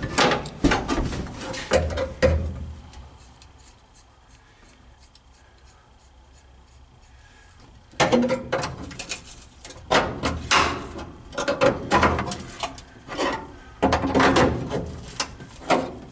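Irregular bursts of noise from sheet-metal repair work on a truck cab's floor pan. One spell, a quiet stretch of several seconds, then a longer run of bursts from about eight seconds in.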